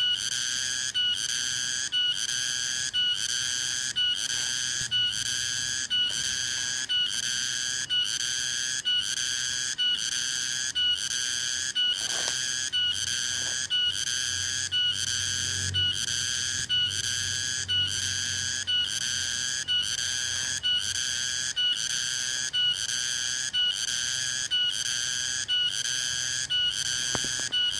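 Cicada (tonggeret) singing: a loud, whistle-like pure tone broken by a short gap and repeated about once a second, over and over.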